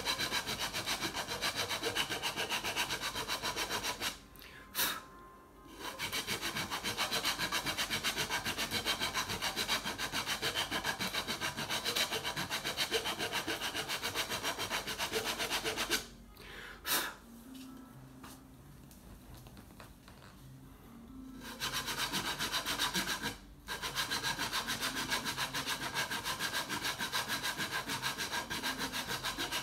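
A hand-held cue tip shaper rasped back and forth in fast, even strokes against a freshly installed pool cue tip, shaping it. The rasping stops briefly about four seconds in, pauses for several seconds past the middle, then resumes.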